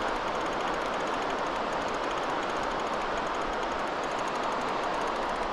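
Fishing reel being wound in steadily while a hooked fish is played on a beachcaster: a continuous whirring with a fast, faint ticking.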